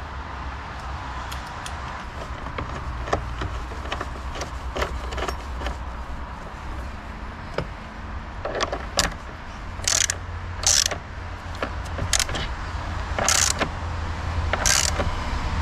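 Metal tool clinking as a socket is fitted onto a ratchet wrench, then the ratchet clicking in short bursts, about one a second in the second half, as it tightens the bolt of the car battery's hold-down bracket.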